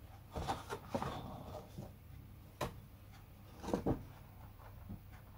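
Faint handling noise of a large paper decal sheet being held and shifted in the hands: a few soft rustles and knocks, about half a second in, near the middle and around four seconds in.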